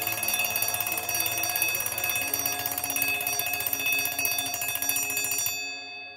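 The bell alarm of a freshly restored Favre-Leuba Jaz mechanical alarm clock ringing continuously, its hammer rattling against the bell. The ringing cuts off suddenly about five and a half seconds in, as the button on top is pressed, leaving a brief fading ring.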